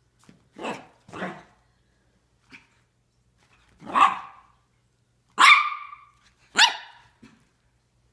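Small dogs barking in play: a handful of short, separate barks, with three louder ones in the second half, the loudest about five and a half seconds in.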